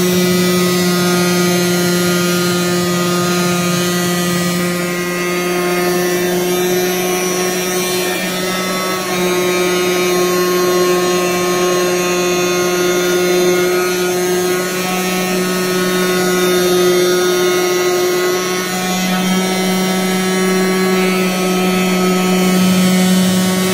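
CNC oscillating tangential knife cutter running as its vibrating blade cuts through thick foam sheet: a steady, loud machine hum with a strong low tone and a ladder of higher overtones, holding nearly even throughout.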